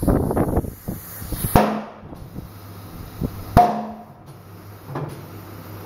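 A tyre being worked on an alloy wheel: a short clatter, then two sharp bangs about two seconds apart, each with a brief metallic ring, and a fainter knock near the end.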